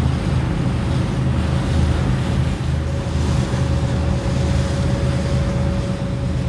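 Passenger ferry under way: its engine runs with a steady low drone and a thin steady tone above it, mixed with rushing water and wind on the microphone.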